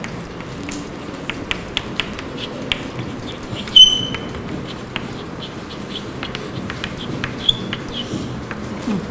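Chalk writing on a blackboard: short taps and scratches as letters are formed, with a sharp high chalk squeak about four seconds in and a shorter one later.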